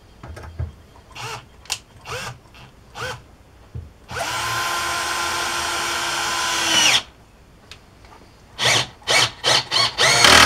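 Workzone 12V cordless drill driving a long screw into hardwood end grain: the motor runs steadily for about three seconds, getting louder just before it stops. Light knocks of handling come before it, and several short sharp bursts follow near the end.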